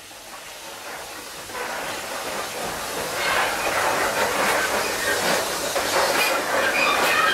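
1915 Baldwin 0-6-2T narrow-gauge steam tank locomotive approaching and growing steadily louder, its running noise, steam hiss and wheel clatter on the rails building as it nears, with a thin squeal from the wheels near the end.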